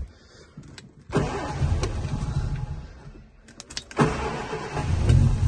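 1965 Sunbeam Rapier's four-cylinder engine being cranked by the starter on a cold start with the choke out: it turns over for about two seconds, pauses, then cranks again and catches about a second later, settling into a steady run.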